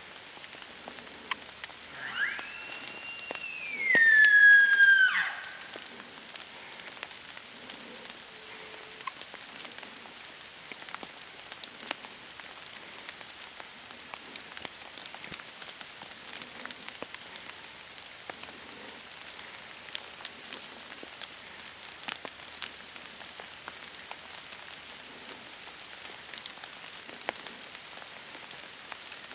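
Steady patter of rain with scattered drop ticks. About two seconds in, a long whistled animal call rises, holds high, then slides down over about three seconds and is the loudest sound.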